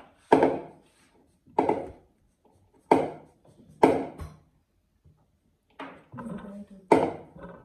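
Wooden spoon knocking against a bowl as cooked rice is scooped and shaken off it: about five sharp knocks, spaced irregularly a second or so apart, each ringing briefly.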